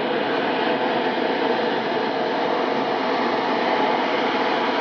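Airbus A320neo's two turbofan engines and the rush of wet-runway spray as the airliner rolls out after landing: a steady roar of noise with a faint held whine, growing slightly louder as it approaches.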